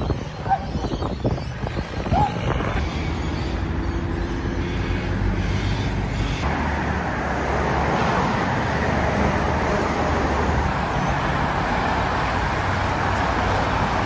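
Road traffic going by, cars passing with a few sharp knocks in the first couple of seconds. About six seconds in it steps up to a louder, steady rush as a heavy truck passes close.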